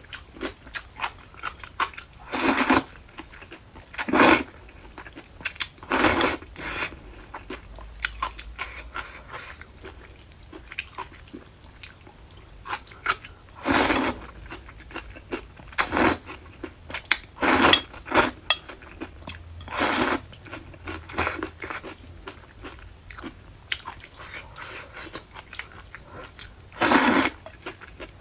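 A person eating noodles with crunchy hot-and-sour pickled radish: steady chewing and crunching, with short loud bursts of eating noise every couple of seconds.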